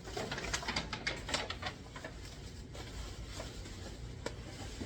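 Packaging being handled as a box is unpacked: a quick run of crinkles and taps in the first couple of seconds, then a few scattered light clicks.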